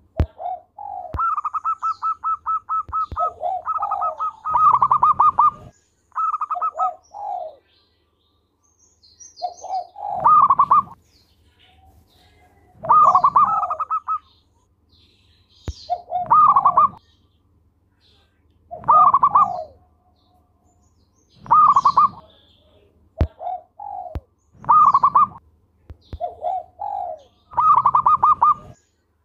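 Zebra dove (perkutut) singing its cooing song: repeated phrases of quick rolling notes and low coos, coming every two to three seconds, the first phrase opening with a long fast run of notes. Faint high chirps from other small birds are heard now and then.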